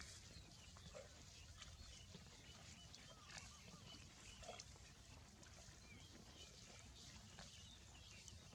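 Near silence: faint outdoor background with a low steady rumble and a few faint, high, short chirps.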